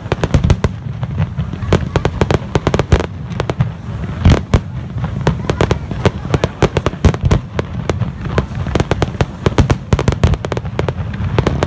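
Fireworks display: aerial shells bursting amid dense crackling, many sharp pops a second, with a heavier bang about four seconds in.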